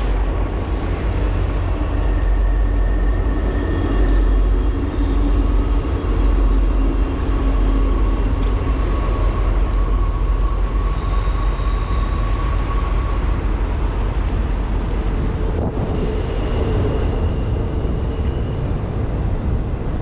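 Double-stack container freight train passing: a steady low rumble, with faint high squealing tones coming and going over it.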